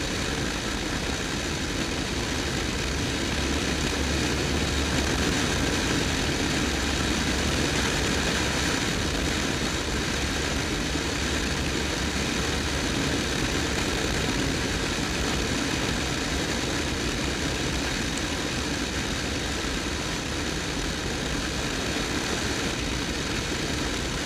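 Motorcycle engine running at a steady cruise, mixed with steady wind and road rush over the microphone.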